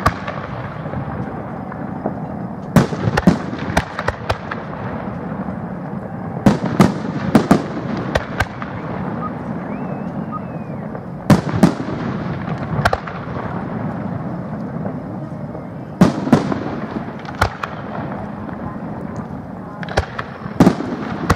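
Aerial firework shells bursting overhead. The sharp booms come in clusters of two to four, about every four to five seconds, over a steady background haze.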